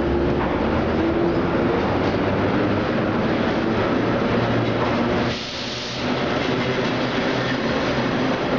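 Vintage R1/9 subway train running past the platform: a steady rumble of wheels and motors on the rails. About five seconds in it briefly drops in level for under a second, with a hiss standing out.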